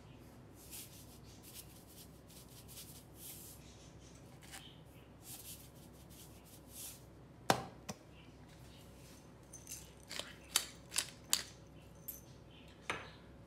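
Hand pepper and salt mills twisted over a bowl of dressing, grinding. It starts as a run of short, faint rasping grinds, then a few sharp clicks from about seven seconds in, bunched near the end.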